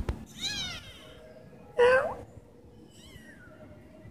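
Kittens mewing: three high, arched meows, the second, about two seconds in, the loudest, and the last faint and falling. A brief knock at the very start.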